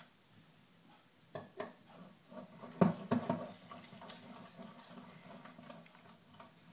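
A wire whisk beating thin waffle batter in a stainless steel bowl. A few knocks come first, the loudest about three seconds in, followed by a quick, steady wet clatter of the wires against the bowl.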